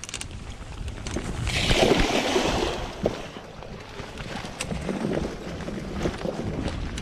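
Bicycle tyres rolling over rutted dirt with the bike rattling and wind buffeting the microphone; about a second and a half in, a rush of splashing water lasts about a second as the bike runs through wet mud or a puddle.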